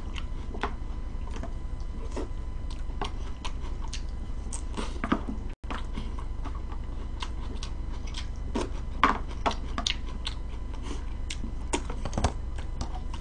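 Wooden chopsticks clicking and scraping against a glass salad bowl, with some chewing: irregular light clicks over a steady low hum.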